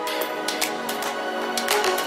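Background music: held electronic-sounding notes over a beat of quick, sharp percussive ticks.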